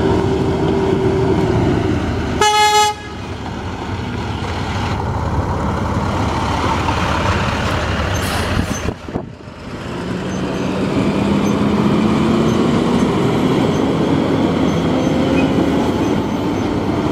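Heavy work truck driving by, engine running, with one short horn toot about two and a half seconds in. Later the engine pitch climbs steadily as the truck pulls away.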